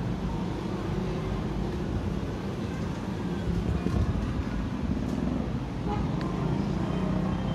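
Steady low hum of road traffic, with no distinct events.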